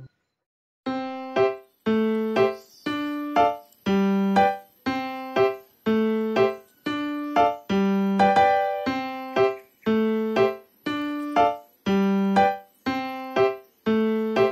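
Background music: a keyboard plays short, separately struck chords in a steady beat, about two a second, starting about a second in after a brief silence.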